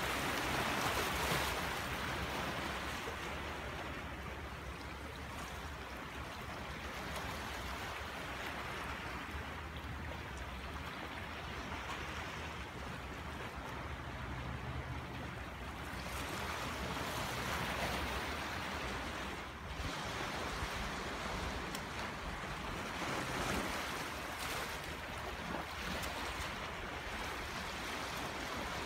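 Rough sea surf breaking on a rocky shore, the wash swelling and easing every several seconds.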